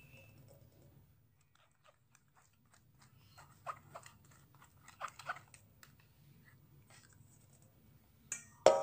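Spoon scraping and pressing thin serabi batter through a sieve into a bowl, a run of small scrapes and clicks, then one sharp clink with a short ring near the end.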